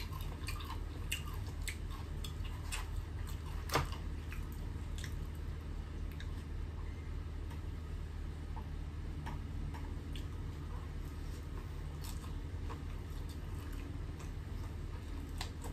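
Close-up eating sounds: fried chicken being chewed, with scattered small mouth clicks and smacks, thicker in the first few seconds and one louder click about four seconds in. A steady low hum runs underneath.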